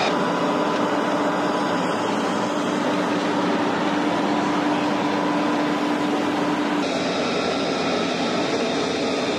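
Jet aircraft engine running on a flight line: a loud, even rush of noise with a steady whine, changing abruptly about seven seconds in.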